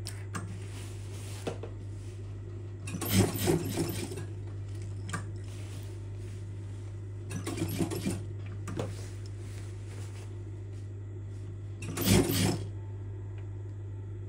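Sewing machine stitching in three short runs, about three, eight and twelve seconds in, over a steady low hum.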